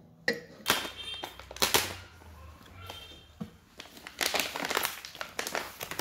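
Handling noise around a mixer grinder and its stainless-steel jar, with the motor not running. A few sharp knocks come in the first two seconds, then a stretch of dense rustling and crinkling about four seconds in.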